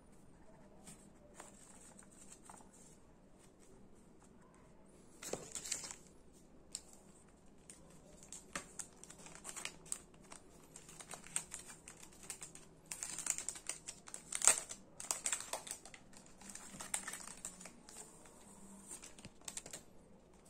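Close-up handling of small objects and packaging: irregular light clicks and taps with bursts of crinkling. It is quiet for the first few seconds and grows busier after about five seconds, with the loudest handling near the middle.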